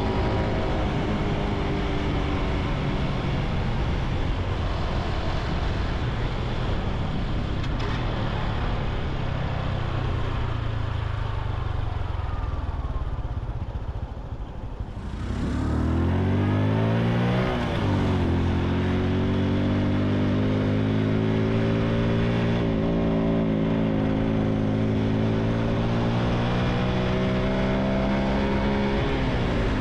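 Honda Super Cub C125's single-cylinder engine, heard from on board over wind and road noise. It runs steadily, then falls away about halfway as the bike slows. It revs up in a rising note for about three seconds, breaks off briefly at a gear change, and then settles into steady cruising.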